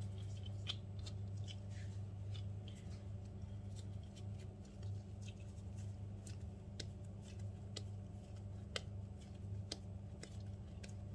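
Hands shaping a ball of soft bread dough, pinching and tucking it underneath: scattered faint clicks and sticky taps over a steady low hum.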